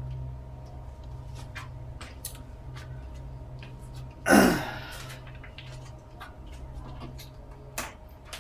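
Handling sounds at a workbench: a few light clicks and taps, and one loud rustling scrape about four seconds in, over a steady low hum.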